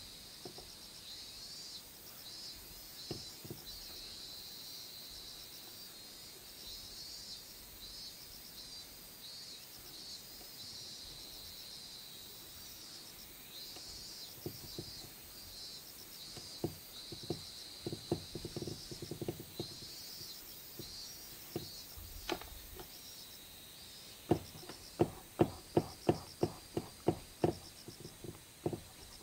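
Charcoal strokes scraping and tapping on sketchbook paper, sparse at first and coming thick in the second half, with a run of quick sharp strokes about two or three a second near the end. Under them runs a steady high pulsing chirp of insects.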